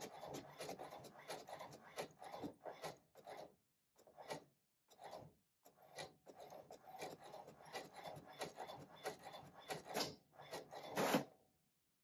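HP DeskJet 2742e inkjet printer printing a colour page: its print-head carriage shuttles back and forth in many quick, scratchy passes. A louder last stroke comes near the end, then it stops.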